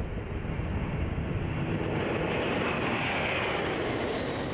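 Jet engines of a four-engine Boeing 747 at take-off power as it lifts off: a steady jet roar with a high whine that swells past the midpoint.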